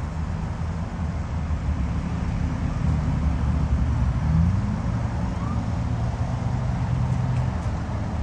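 Car engine and road noise while driving: a steady low rumble, with the engine pitch rising briefly about halfway through.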